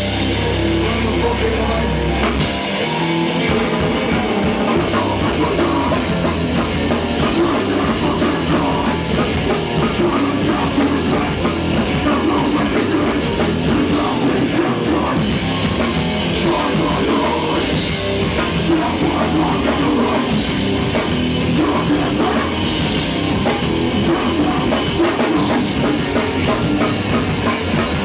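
Hardcore punk band playing live and loud: distorted electric guitar, bass guitar and drum kit at full tilt, with a low note held through about the first two seconds.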